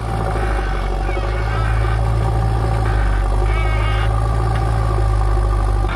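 JCB 3DX backhoe loader's diesel engine running steadily with a deep hum. A brief higher whine rises over it about three and a half seconds in.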